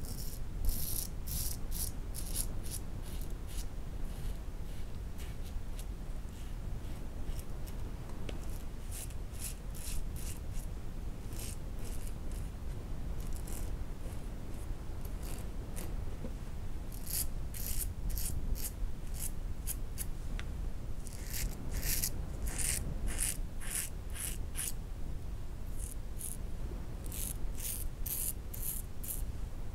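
Yunost safety razor scraping through lathered stubble in runs of short, crisp strokes. Near the end a shaving brush works lather onto the face.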